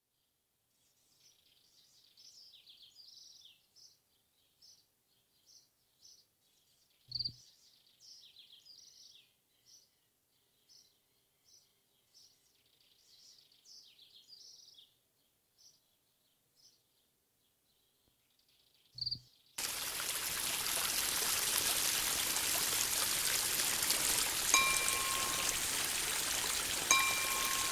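Faint, high bird chirps, roughly one a second, with two short clicks; about two-thirds of the way in, a loud steady sound of rushing stream water begins, with a high chime note repeating every couple of seconds near the end.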